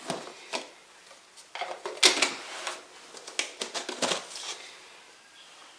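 A spoon clinking, tapping and scraping against dishes and a sour cream container while serving up food: a run of irregular short knocks and scrapes, the loudest about two seconds in.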